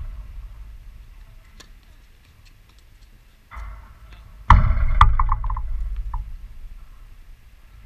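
Tennis ball bouncing on a hard court: two loud hits about half a second apart, then a run of small bounces coming quicker and quicker as the ball settles. A low rumble swells with the loud hits.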